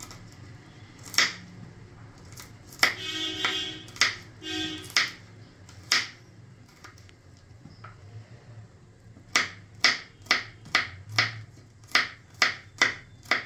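Kitchen knife chopping garlic cloves on a cutting board: a few spaced single chops, then a steady run of about two chops a second in the second half.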